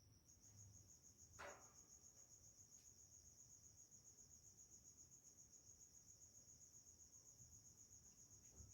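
Faint, steady high-pitched insect trill, pulsing rapidly, with a single short click about a second and a half in.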